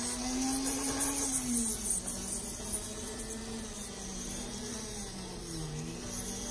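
Electric nail drill buzzing steadily as its bit files a fingernail, the pitch dipping briefly twice.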